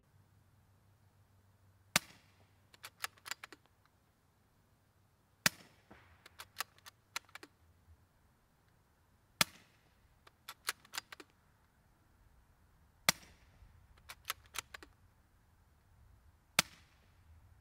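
Five suppressed .22 LR rifle shots from a Remington 597 fitted with a TBA Peacemaker rimfire suppressor, fired one at a time about four seconds apart. Each is a short, sharp crack followed within a second by a few faint clicks.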